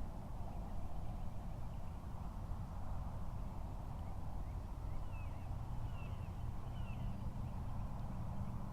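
Steady low outdoor rumble with a few faint bird chirps, short falling notes heard three or four times a little past halfway.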